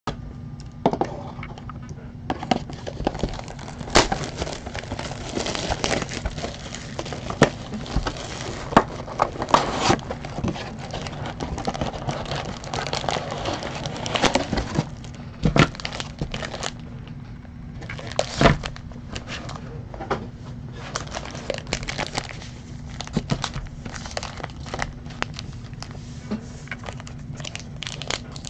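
Plastic wrap and foil baseball card packs crinkling and tearing as a sealed hobby box is cut open and its packs pulled out, with many sharp clicks and knocks of cardboard and packs being handled.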